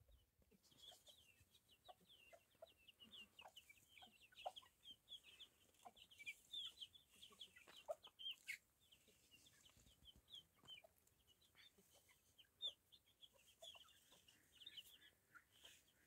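Faint clucking of chickens, with rapid high-pitched chirping going on through most of it.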